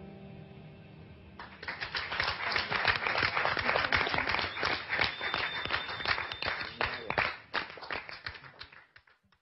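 The last guitar chord dies away, then audience applause and clapping start about a second and a half in, run strongly for several seconds and fade out near the end.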